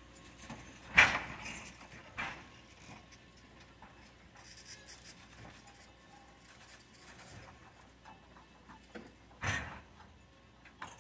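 Three sharp knocks with quiet between them: a loud one about a second in, a weaker one a second later, and another near the end.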